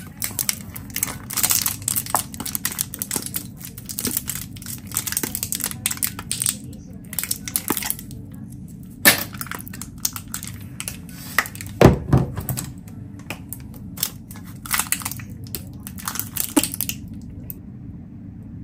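Plastic squeeze tubes of ginger and garlic paste crinkling and crackling as they are handled and squeezed out, in bursts with a few sharp clicks. One heavier knock about twelve seconds in.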